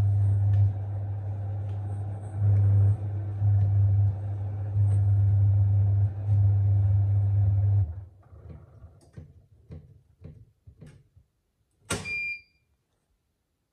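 Washing machine at the end of an 800 rpm spin: a loud, steady low hum that swells and dips several times cuts off about eight seconds in. A few fading clicks and knocks follow, then a sharp click with a short high beep near the end.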